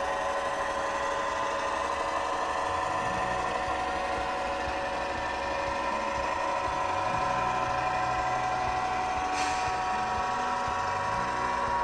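HO-scale F3 diesel model's Tsunami2 sound decoder playing a diesel engine running at a steady pitch through its small speaker, with a low rumble joining about three seconds in and a brief hiss near the end.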